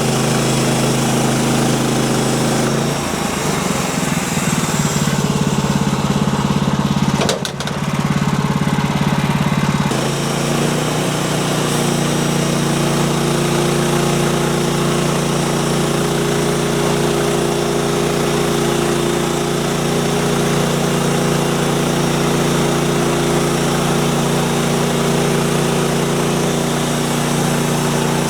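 Small gasoline engine of a Woodland Mills manual band sawmill running steadily. Its note changes about three seconds in and again about ten seconds in, with a brief dip in between.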